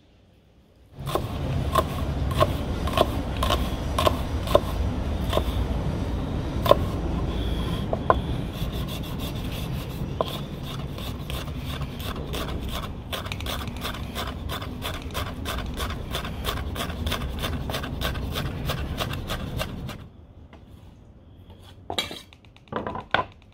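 Kitchen knife finely chopping a shallot on a wooden cutting board: a long run of quick strokes, at first about two a second and then faster, stopping about twenty seconds in. Near the end, two short scrapes as the knife pushes the chopped shallot off the board into a stainless steel bowl.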